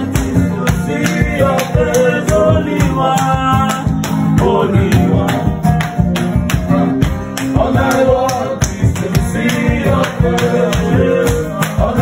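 Live gospel-style singing by a man's voice over an acoustic guitar, with a hand shaker keeping a steady rhythmic beat.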